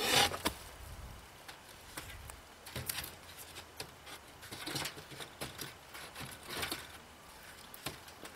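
Scattered knocks, taps and scrapes of a wooden board being worked down into a wooden hutch frame with wire-mesh sides, a little louder in the first half-second and then sparse.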